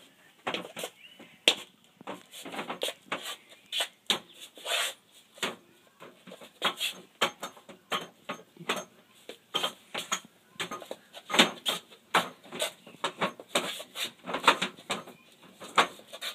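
A child's hands and forearms knocking against the arms of a Wing Chun dummy (mok yan chong): irregular sharp clacks, a few a second, with short pauses between flurries.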